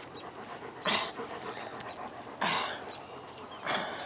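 Crickets chirping steadily in the grass, with three short rushing noises about a second and a half apart from a dog close to the microphone at its freshly dug den.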